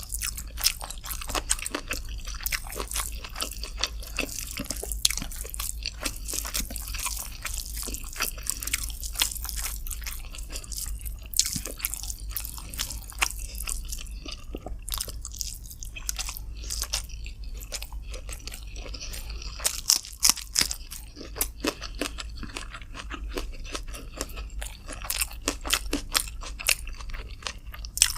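Close-miked eating of chicken with rice: continuous chewing and biting, with dense, irregular crunches and mouth clicks.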